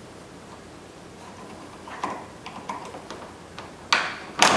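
Flat-blade screwdriver prying the latch handle off a 2003 Volkswagen Passat's front grille: small scattered clicks, then two loud sharp snaps near the end as one side and then the other side of the handle pops free.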